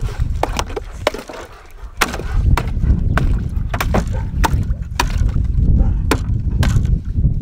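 Thin ice on a plastic water tub being broken with a wooden handle: repeated sharp cracks and knocks at an irregular pace, with a low rumble underneath from about two seconds in.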